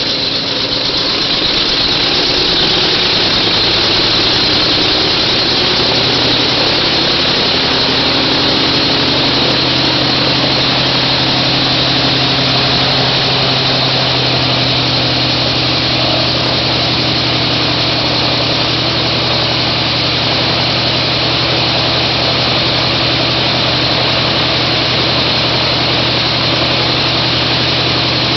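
An engine running steadily. Its pitch climbs a little over the first several seconds and then holds, over a steady high hiss.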